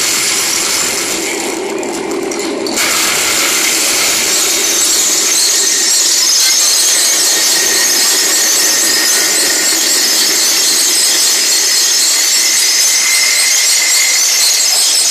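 Loud soundtrack of a building projection light show over loudspeakers: a sustained harsh, screeching hiss with no beat. It grows brighter about three seconds in.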